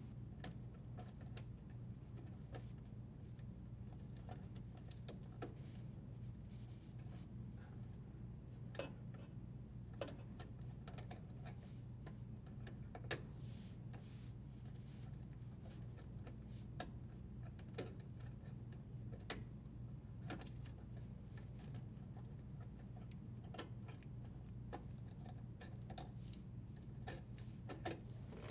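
Faint, irregular small clicks and ticks as plastic wire nuts are untwisted and the dishwasher's power wires are handled, over a steady low hum.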